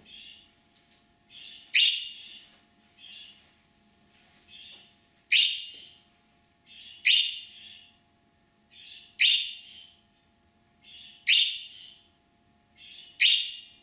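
Budgerigar giving its contact call: a loud, sharp chirp repeated about every two seconds, six times, each with a softer short call just before it. This is the call a budgie makes when it hears another budgie or is separated from its companion, as if calling it back.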